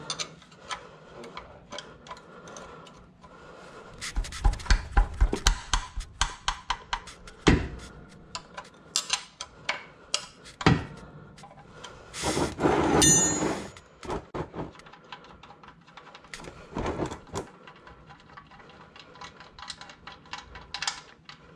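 Hands working on the underside of a car: scattered clicks and knocks of tools and parts, a run of quick even ticks about four a second starting about four seconds in, two sharper knocks, and a louder scraping rustle about twelve seconds in.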